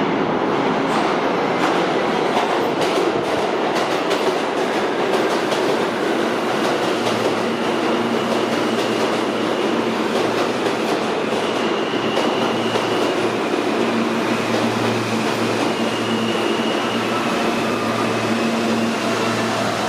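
New York City subway train, an R160-series car set, running through the station with a loud, steady rumble and wheels clicking over rail joints. From partway through, a steady low hum and a faint high whine join in.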